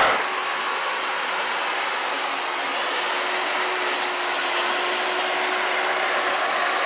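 John Deere tractor with a wide rotary cutter behind it, running steadily: an even rushing noise with a faint steady hum.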